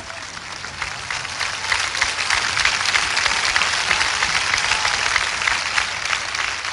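Large congregation applauding, building over the first couple of seconds and then holding steady.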